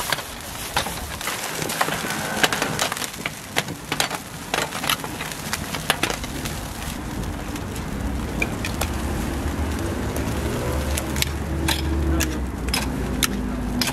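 Stainless-steel dome lids and steel hand presses clinking and knocking against a flat griddle as they are lifted and set down, many sharp knocks at an uneven pace over a steady background hiss.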